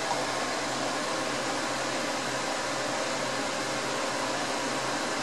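Steady fan noise with a faint low hum under it.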